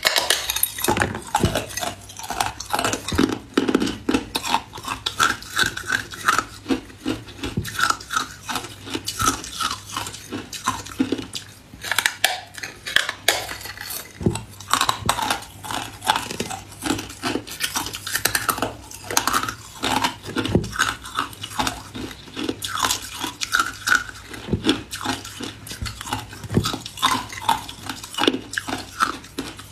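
Teeth biting and crunching into a large slab of hard ice, over and over, with sharp cracks as pieces break off and the crunch of chewing ice chips.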